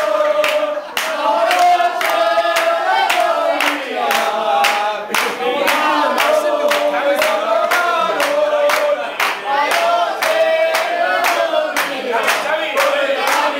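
A group singing together in chorus while clapping hands on a steady beat.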